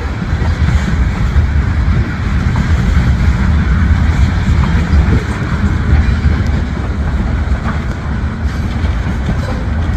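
Freight train cars rolling past on the rails: a steady, loud low rumble of wheels on track with a few faint clicks.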